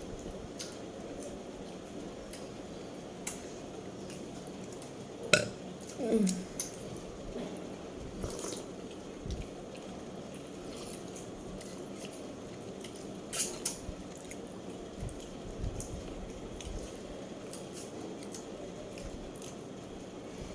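Eating at a plate: scattered sharp clicks and clinks of dishes and utensils over a steady low hiss, with one short low vocal sound about six seconds in.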